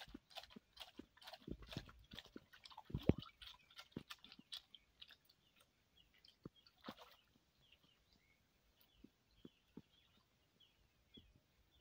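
African wild dogs wading and moving in a shallow pool: irregular small splashes and sloshing water, busier in the first few seconds and sparse after that.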